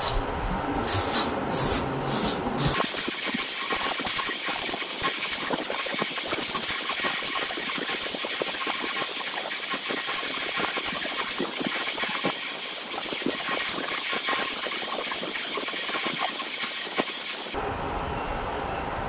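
A small blade scraping the ridged skin off ridge gourds in repeated rasping strokes. From about three seconds in until shortly before the end, a steady hiss lies over the strokes.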